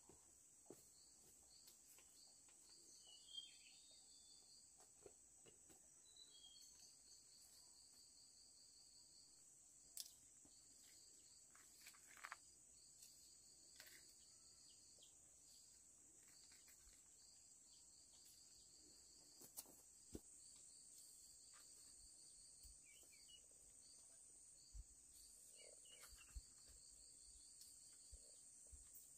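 Very quiet outdoor ambience: insects chirring steadily at a high pitch, with a pulsing chirp train beneath it, and a few faint taps scattered through.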